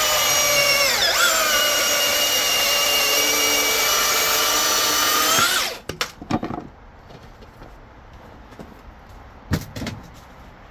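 Milwaukee M18 dual-battery chainsaw with an Oregon LGX .325 full-chisel chain running at full speed in a hardwood cut: a loud, steady whine whose pitch dips briefly about a second in, then rises a little before stopping suddenly about halfway through. A few knocks follow, then a single thump near the end.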